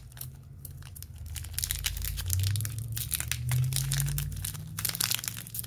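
Foil Pokémon booster pack wrapper crinkling and crackling in the hands as it is worked open, in quick irregular crackles that thicken about two seconds in and again near the end.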